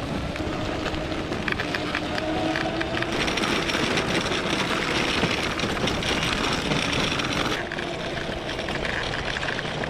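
Off-road electric skateboard rolling over a dirt and gravel road while towing a loaded cart: a continuous rough rumble from the wheels with a steady motor whine. The rolling noise eases a little about three-quarters of the way through.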